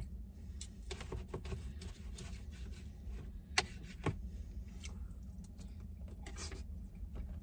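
Knife and fork scraping and clicking on a plate as a steak is cut, with two sharper clinks a little past halfway, over a low steady hum.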